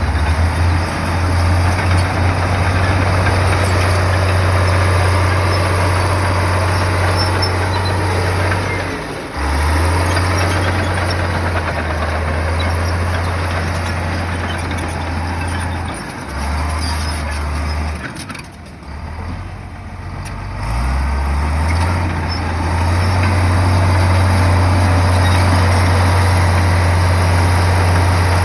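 Diesel engine of a heavy earthmoving machine running under work, a steady low drone. It dips briefly a third of the way in and again just past halfway, then goes quieter for a few seconds about two-thirds through before coming back up.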